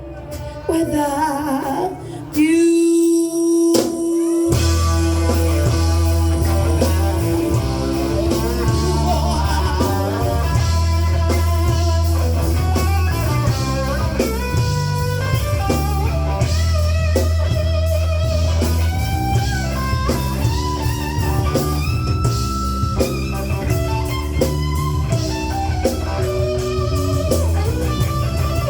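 Live rock band playing, with electric guitar over bass and drum kit. A held guitar note rings alone for a moment, then the full band comes back in about four seconds in.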